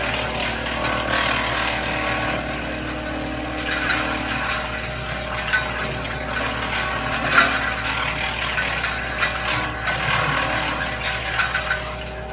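WoodMaxx MX-8800 PTO-driven wood chipper running steadily off a Kubota L3901 diesel tractor, with irregular sharp cracks and snaps as apple branches are fed in and chipped.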